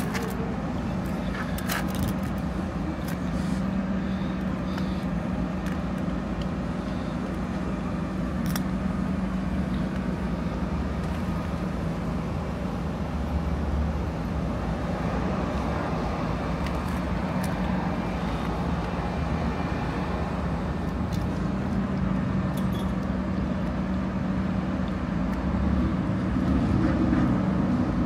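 A truck engine running steadily at idle, a low even drone, with a few faint clicks over it.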